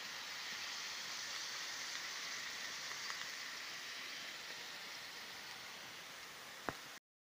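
Potato wedges sizzling in hot oil in a frying pan: a steady, even hiss that fades slightly, with one sharp click near the end before it cuts off suddenly.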